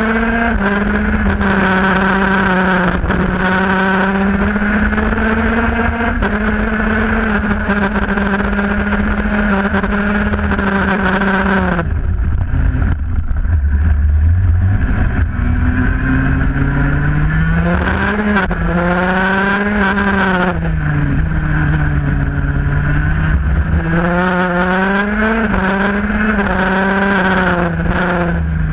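IAME Parilla 125cc KZ shifter kart's two-stroke engine running hard, its pitch rising and falling with throttle and gear changes, under a low rumble of wind on the microphone. About twelve seconds in, the engine note drops away for a slow corner, then climbs back up a few seconds later.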